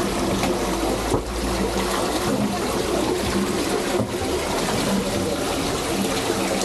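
Spring water running steadily from a row of metal fountain spouts, pouring into a plastic bottle being filled and splashing onto the tiled basin.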